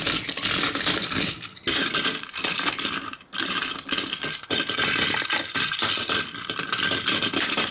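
Plastic battery-powered toy trains rattling and clattering as they are picked up and set down by hand, over a faint steady mechanical whine.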